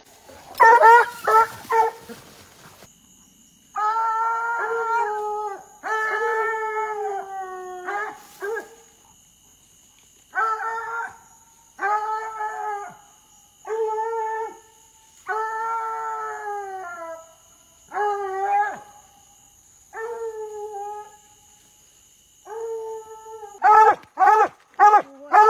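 Treeing Walker coonhound baying at a treed raccoon. A few short barks, then a long series of drawn-out howls a second or two each that sag in pitch at the end, then a fast run of chop barks near the end.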